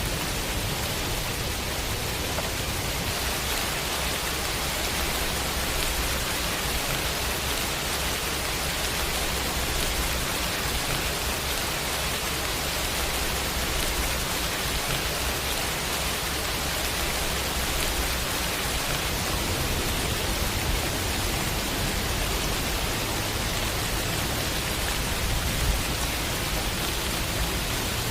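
Heavy rain falling steadily in an even, dense hiss, with a low rumble underneath.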